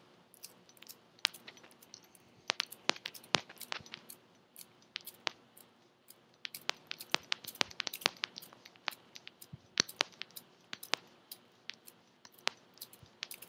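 Glass and crystal beads strung on elastic stretch cord clicking against one another in irregular clusters as the cord is pulled and let go over and over, pre-stretching the cord before it is knotted.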